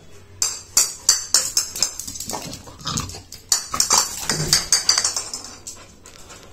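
A dog moving about on a hard floor during play: a quick, irregular run of claw clicks and taps, with a few short low noises from the dog around the middle.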